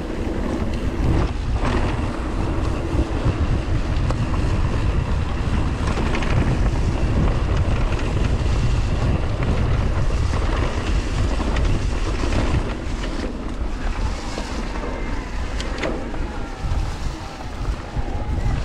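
Wind rumbling on the microphone of a camera riding on an electric mountain bike, with tyre noise and scattered knocks and rattles from the trail.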